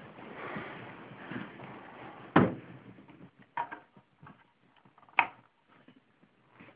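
A rustling noise, then a few separate sharp knocks, the loudest about two and a half seconds in and another near the five-second mark.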